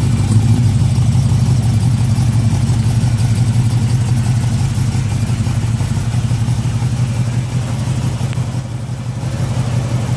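1962 Chevrolet pickup's engine idling steadily with a low, even rumble.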